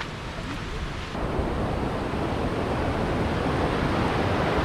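Steady rush of a river waterfall, a noise with no distinct tones that swells about a second in and keeps growing louder.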